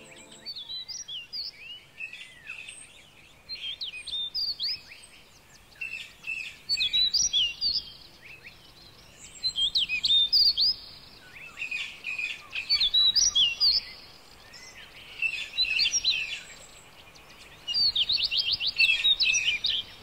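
Wild birds singing: short phrases of high chirps and quick trills every few seconds, over a faint steady background hush.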